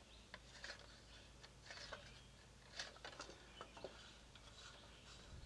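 Near silence with faint scattered clicks and light scrapes from a steel recoil-starter spring being fed with pliers into the pulley of a lawn mower pull-cord starter housing.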